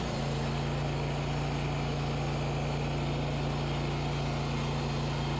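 Wood-Mizer LT40 portable band sawmill's engine running steadily with a low, even hum.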